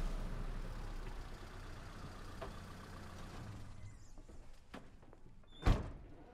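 An SUV pulling up with a low engine rumble, then a few light clicks, and a car door slamming shut about five and a half seconds in.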